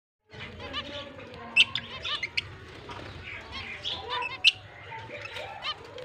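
Zebra finches calling, many short repeated calls overlapping, with two louder sharp calls, one about one and a half seconds in and one about four and a half seconds in.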